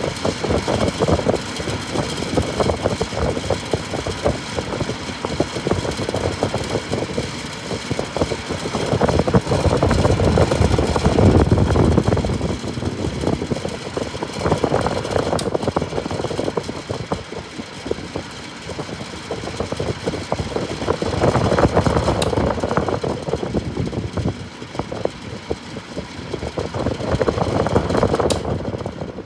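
Antique Mathes box fan running: a steady motor hum with a rush of moving air that swells and fades several times.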